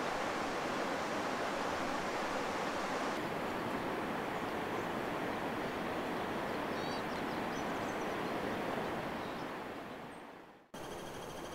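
Mountain creek rushing steadily, with a few faint chirps about seven seconds in. Near the end the rushing fades out and gives way to a quieter, steady hiss.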